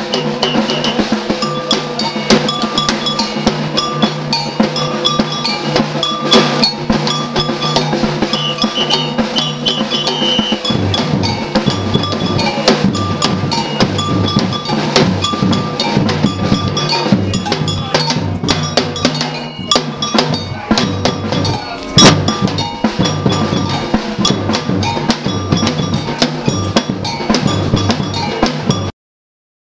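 Carnival percussion music: a dense, driving drum rhythm with a prominent cowbell beat over steady pitched backing. The sound cuts out abruptly about a second before the end.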